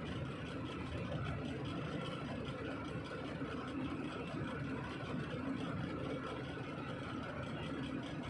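Heavy diesel engine running steadily at a constant speed, with no revving or sudden knocks.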